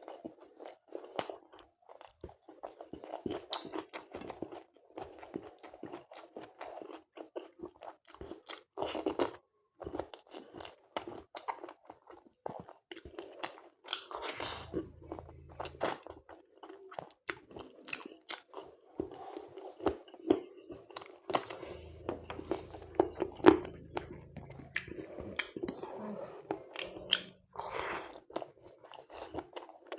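A person chewing and biting food close to the microphone, with irregular wet clicks and crunches as they eat chicken curry with puri and raw salad.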